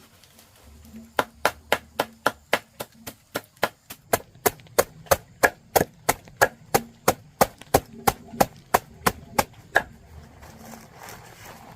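Rapid, even chopping with a knife or blade striking a wooden board, about three to four strokes a second, stopping about ten seconds in.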